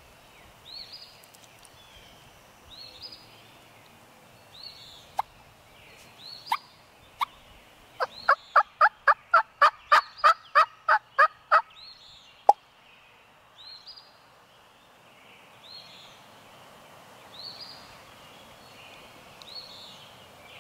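Wild turkey yelping: a fast run of about a dozen sharp, evenly spaced yelps, about four a second, in the middle, with a few single yelps before and one after. Under it, a small songbird repeats a short high chirp about once a second.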